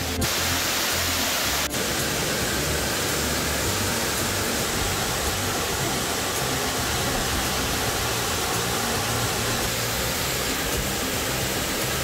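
Background music with a low, stepping bass line over the steady rushing noise of a waterfall. The rushing breaks off for an instant twice in the first two seconds.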